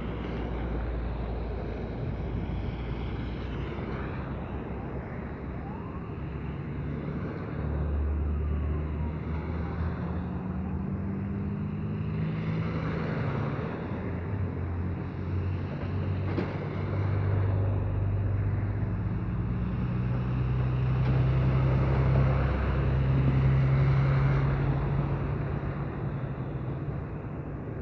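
Diesel engine of a wheeled tractor-backhoe running and revving, its pitch stepping up and down as it works to shift a minibus stuck on an embankment, over a steady hiss of traffic.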